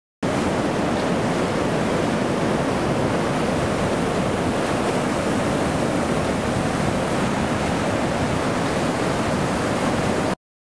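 Flood-swollen river rushing as white water through and below a dam, a steady rush of water that starts and cuts off abruptly.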